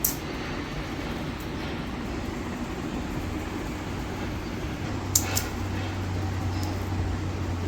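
A steady low machine hum with a sharp click at the very start and two quick clicks about five seconds in.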